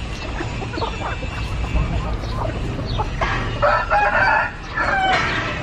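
A rooster crows loudly about three seconds in, and a second crow starts near the end, over the clucking and short calls of many chickens.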